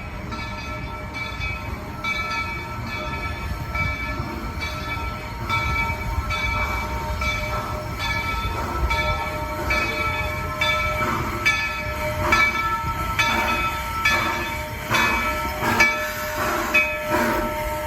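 Steam locomotive #3 Roger E Broggie of the Walt Disney World Railroad running, with a regular beat that quickens toward the end over a steady multi-tone hum.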